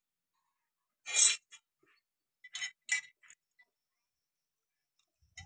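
Metal hose clamps clinking against each other and on metal as they are handled: one sharp clink about a second in, then three lighter clinks shortly after.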